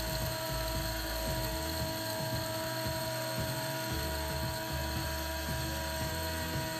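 Hamilton Beach electric coffee grinder running on its timed cycle, grinding coffee beans with a steady high whine.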